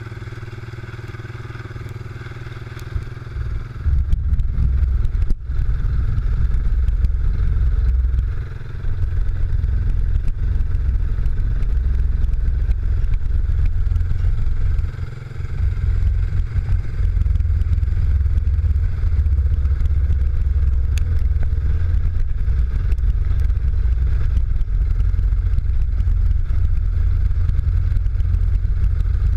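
ATV engine running as it drives along, heavily buffeted by wind on the microphone. From about four seconds in, a loud, deep wind rumble covers most of the engine sound.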